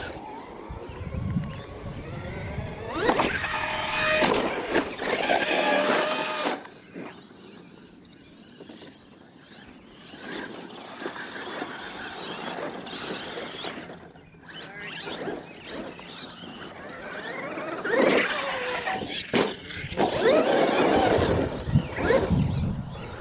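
Traxxas X-Maxx RC monster truck's brushless electric motor and drivetrain whining, rising and falling in pitch with the throttle in repeated bursts. It is loudest a few seconds in and again near the end, quieter in between.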